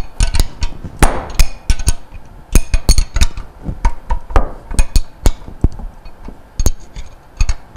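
A wrench working the steel flange bolts of a condensate pump loose: an irregular run of sharp metal clicks and clinks, several a second, as the wrench is turned and set back on the bolt heads.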